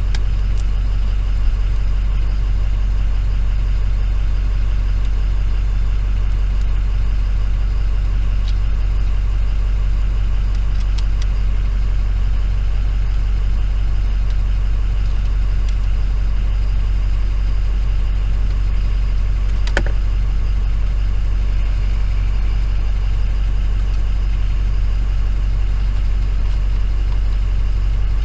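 Steady low idle hum of a 2007 Ford F-250's 6.0 L Power Stroke V8 diesel, with a few faint clicks of hand tools, one near the middle.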